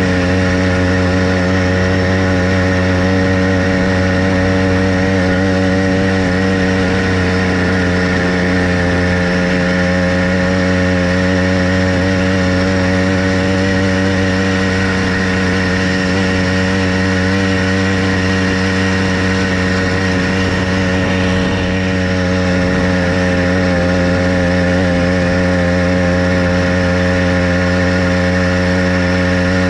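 Motorized bicycle's small petrol engine running steadily at a near-constant speed under way, with only slight wavering in its pitch.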